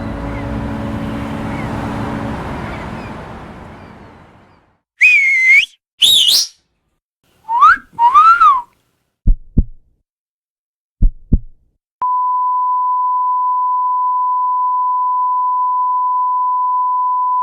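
A sequence of sound effects. Harbour ambience with a low ship's horn fades out, then come four short warbling and rising whistles and two pairs of heartbeat thumps. Last is a steady high beep tone that starts about 12 seconds in and holds.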